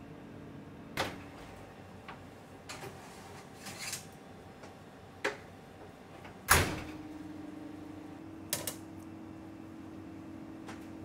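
Steel oven door opened and a metal baking tray of biscotti handled: a run of sharp clicks and clacks, the loudest about six and a half seconds in, over a steady low hum from the running oven.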